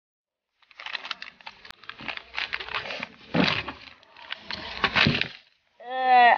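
A plastic candy bag crinkling and rustling as it is handled, with a few mouth noises mixed in. Near the end, a loud drawn-out voice cry that bends up and down in pitch.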